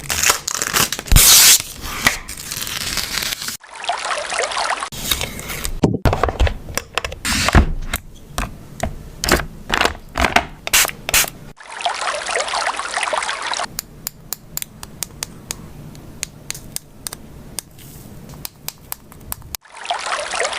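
Close-up crafting sounds from making an acrylic shaker charm, in short cut-together takes: quick clicks and taps on plastic, scraping, and stretches of hissing, liquid-like noise.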